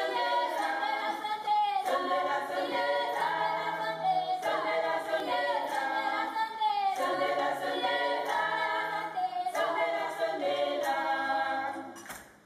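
Background music of a choir singing a cappella in held, blended notes, fading out near the end.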